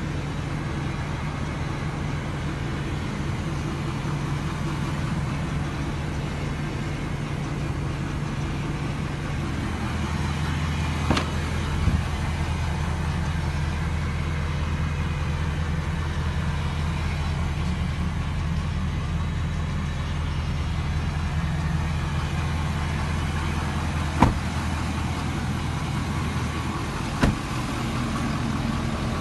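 A 2017 Ford F-250 pickup's engine idling steadily, with a low, even hum. A few short sharp knocks cut in, the loudest about 24 seconds in.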